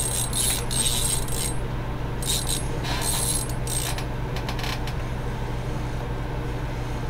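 Fishing reel being worked in short spells, a ratcheting whir that comes and goes, over a steady low hum.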